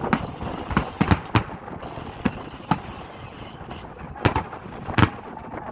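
Fireworks bursting overhead: about eight sharp bangs at uneven intervals, the loudest two near the end.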